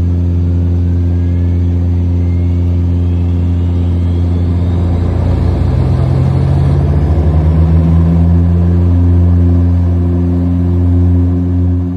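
Turboprop engine being restarted in flight: a thin whine climbs steadily in pitch as the turbine spools up, then the windmilling propeller speeds up, adding a rising, beating hum that settles into a steady tone. Under it, the other running engine drones steadily.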